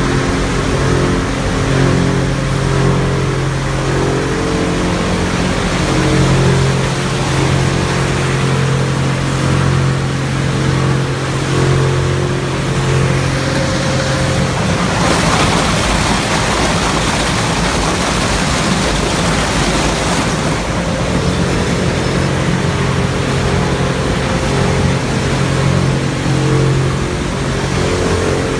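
Industrial plastic shredder and its feed conveyors running: a loud, steady mechanical hum with a low droning tone. For about six seconds in the middle the drone gives way to a rougher, noisier grinding.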